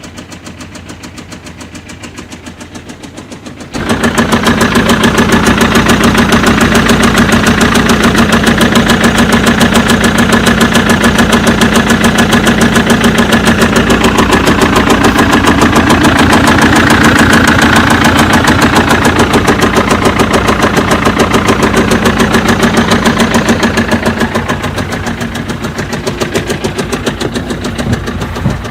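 BMW 1 Series 2.0-litre diesel engine running with an abnormal rhythmic knocking, a fast even 'tab tab tab'. It jumps much louder about four seconds in and eases off a little near the end.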